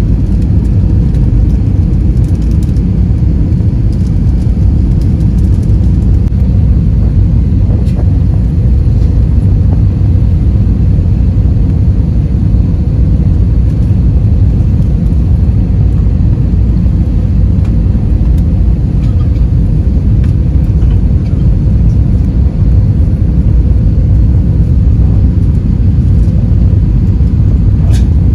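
Steady low rumble of an airliner's jet engines and rushing air, heard from inside the passenger cabin during the landing in Manila.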